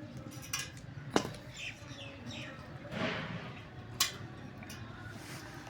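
Three sharp taps, the loudest about a second in, over low background noise, with faint chirping in between.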